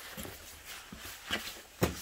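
Footsteps of rubber boots on a wet concrete floor: a few separate steps, the last and loudest just before the end.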